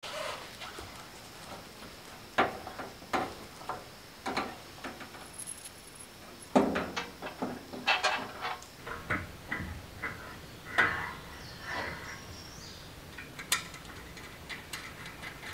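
Metal gazebo frame beams being handled and fitted together: scattered clanks, taps and rattles of metal parts, about a dozen sharp knocks at uneven intervals.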